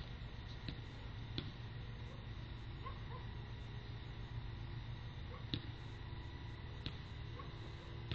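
Steady hiss and low electrical hum from a security camera's microphone, with a faint high whine and a few faint sharp clicks.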